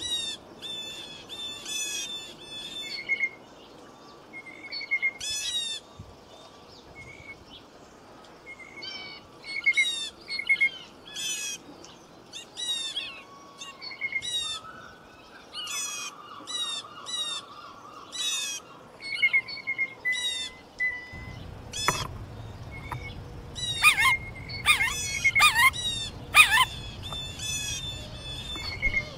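Woodland birds calling over and over in short, sharp chirps that sweep up and down in pitch. A low steady rushing noise comes in about two-thirds of the way through, and the loudest calls come near the end.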